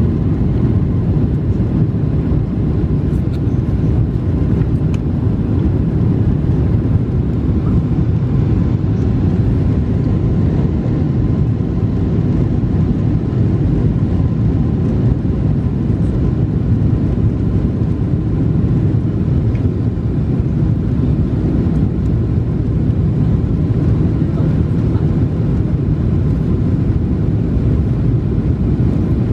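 Steady low rumble of a Boeing 747-436's Rolls-Royce RB211 engines and airflow, heard from inside the passenger cabin over the wing.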